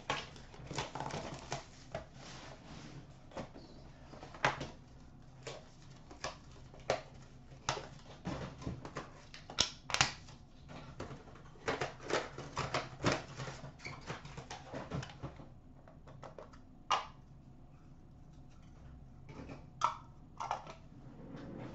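Irregular clicks, taps and rustles of a hockey card box being opened by hand: shrink wrap cut with a blade, the cardboard box opened, and hard clear plastic card cases taken out and clacking as they are handled. The clicks come thickest in the middle and thin out near the end.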